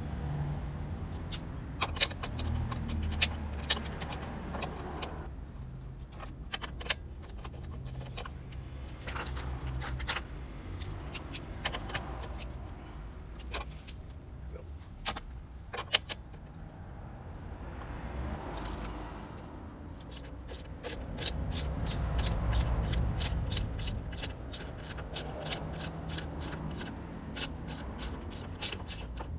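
Metal hand tools and motorcycle parts clinking and clicking as they are handled during rear-wheel work, ending in a fast, even run of clicks over the last several seconds.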